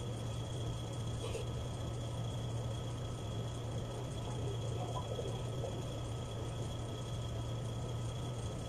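Steady low machine hum with a faint high whine over it, running evenly and stopping abruptly at the end.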